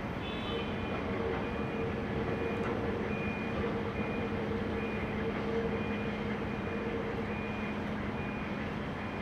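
Rail equipment's motor running with a steady drone, while a high warning beeper sounds about once a second.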